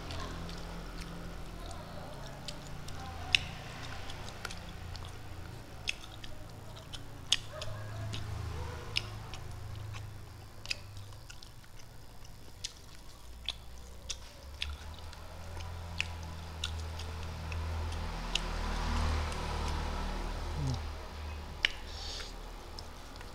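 A person eating rice with the fingers: chewing and mouth noises, with sharp clicks scattered irregularly every second or two, over a low steady hum.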